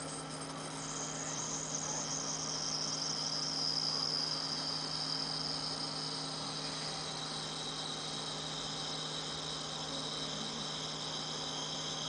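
1:12 scale miniature toilet's flush mechanism, set off by its handle: a steady high-pitched sound of several tones together that slowly drop in pitch.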